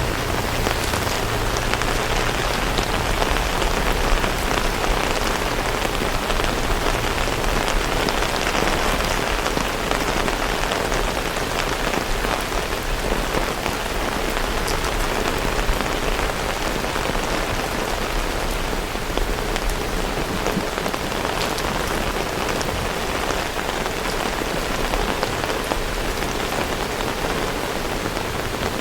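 Heavy rain falling steadily, a dense even hiss with many close drops ticking through it.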